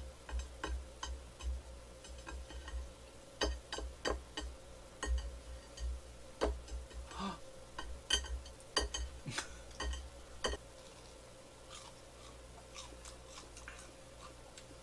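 A springy butter-roasted gijeongtteok rice cake dropped and bounced on a serving tray, giving about a dozen soft, irregular taps and thuds over the first eleven seconds, then fewer.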